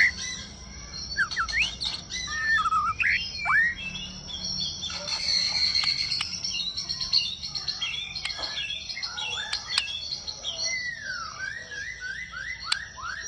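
White-rumped shama (murai batu) singing: varied swooping whistled phrases, with a stretch of fast high chatter in the middle. It ends in a quick run of repeated falling whistles, about three a second.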